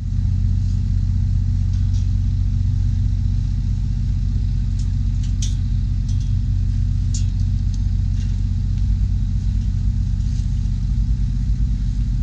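A steady, loud low engine hum runs throughout, with a few faint light clicks over it.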